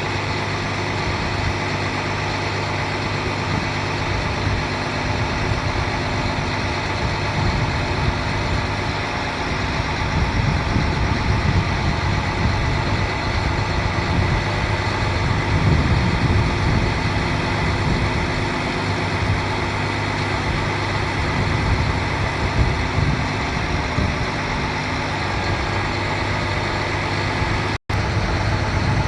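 Diesel engine of an International 4300 bucket truck idling steadily, cutting out for an instant near the end.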